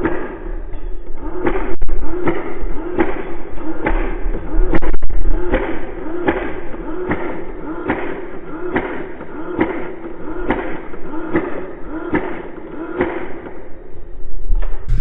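Footsteps at a steady walking pace, about one thud every 0.8 seconds, carried through the wearer's body to the camera. They stop near the end.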